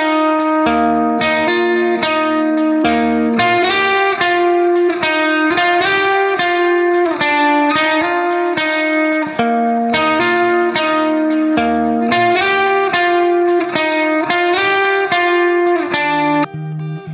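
Background music: a plucked guitar melody played in a steady run of notes, shifting abruptly near the end.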